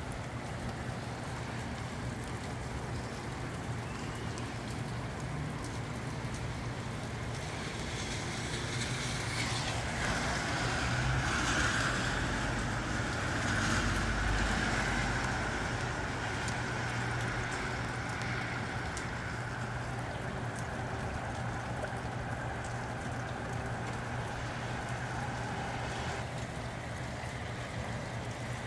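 Steady rain falling with wind blowing through the trees. The noise swells louder for several seconds around the middle, then settles back.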